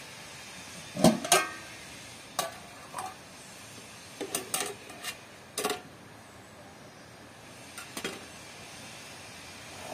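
Aluminium cooking pot and its lid handled: the lid lifted off and set down, with metallic clanks and clinks of pot, lid and a metal tray. The loudest clank comes about a second in, lighter knocks follow over the next few seconds, and there is one more near the end.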